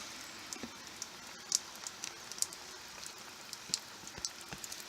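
Steady rain falling, an even hiss with scattered sharp ticks at irregular intervals.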